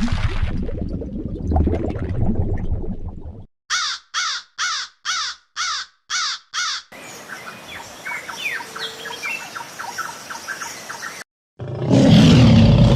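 A bird calling loudly about seven times in a row, roughly two calls a second, followed by softer bird chirps over a steady hiss. The stretch before the calls holds a low, noisy sound, and a loud noisy burst comes near the end.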